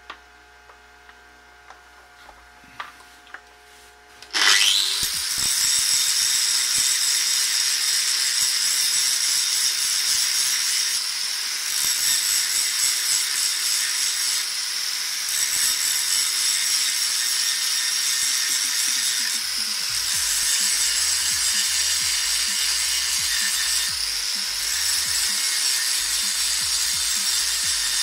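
Handful of light clicks, then an angle grinder switches on about four seconds in, spinning up with a rising whine into a loud, steady high-pitched run. The level wavers as the abrasive disc is worked against the finned metal of a brushless RC motor, grinding the ribs down.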